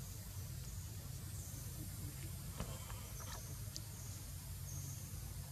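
Outdoor forest ambience: a steady low rumble with scattered short, high chirps, and a few faint clicks about halfway through.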